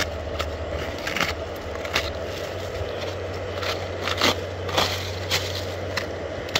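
A gloved hand handling a papery wasp nest on dry leaves: irregular dry crackles and scrapes from the nest's paper shell and the leaf litter, over a steady low hum.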